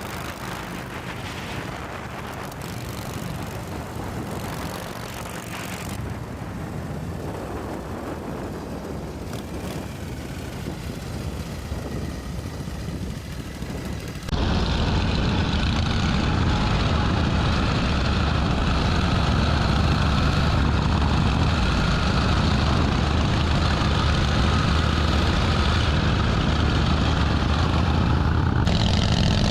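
1948 Harley-Davidson Panhead's V-twin engine running while the chopper is ridden. About halfway through the sound suddenly turns louder and fuller, with a strong low engine rumble.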